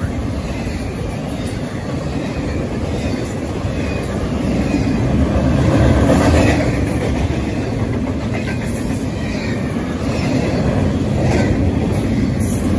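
Intermodal freight train of double-stack container well cars rolling past: a steady rumble of steel wheels on the rails with clickety-clack over the joints, growing a little louder about halfway through.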